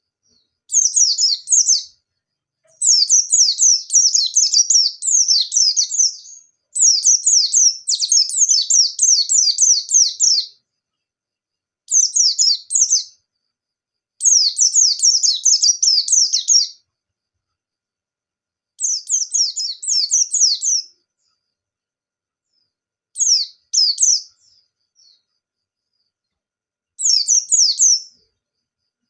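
White-eye (pleci) singing in its fast, rapid-fire 'ngalas nembak' style: about eight bursts of quick, high chirping notes, each lasting one to four seconds, with short pauses between them.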